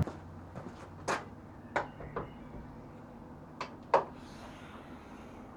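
A few sharp clicks and knocks of objects being handled, the loudest about four seconds in, over a faint low hum.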